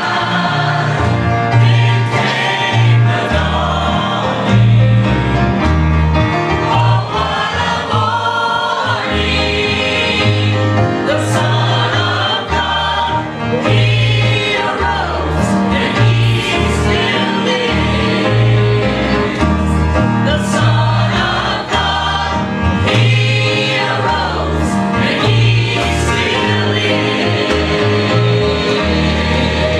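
A gospel choir of men and women singing over instrumental accompaniment, with a prominent bass line moving note by note beneath the voices.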